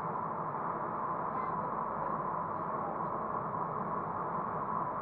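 Steady cabin noise of a car driving at about 40 km/h, mainly tyre and engine noise picked up by a windscreen dash camera's small microphone; an even hiss with no changes.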